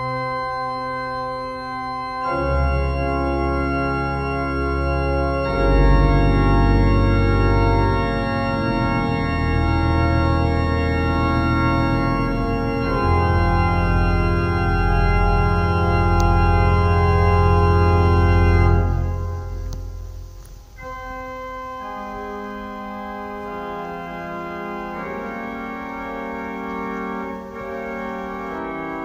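Slow background music of long sustained chords over deep held bass notes, the chords changing every few seconds. It drops in loudness about twenty seconds in and goes on more softly.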